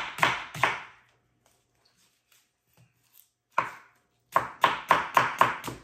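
Chef's knife chopping garlic on a wooden cutting board with quick, rhythmic strokes. They stop about a second in, and one lone stroke falls in the gap. About four seconds in, faster chopping starts again.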